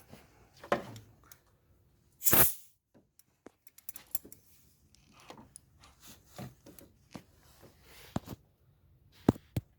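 A short burst of compressed-air hiss about two seconds in, air escaping as a hydraulic valve lifter is pressed down with the cylinder under air pressure. Scattered light clicks and knocks of tools and metal parts come before and after it.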